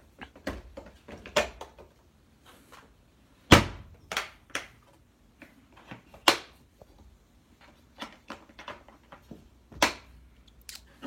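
Parts of a wet/dry vac and their packaging being handled and pulled from the box: a series of scattered knocks and clicks, the loudest about three and a half seconds in, with others near six and ten seconds.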